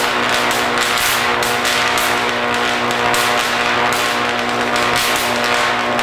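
75,000-volt electric arcs striking an orange and passing through it to ground: a loud, steady buzz with dense crackling.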